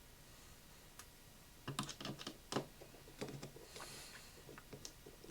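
Light, irregular clicks and taps of tiny iPhone screws being set down one by one on a work surface, thickest about two to three seconds in, with a brief soft scrape near the end.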